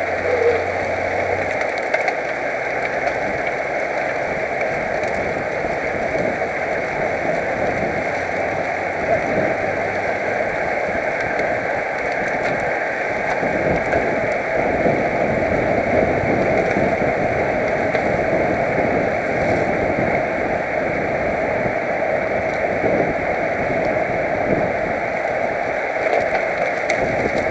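Steady rushing wind and road noise on a helmet-mounted camera while riding a road bicycle at race speed.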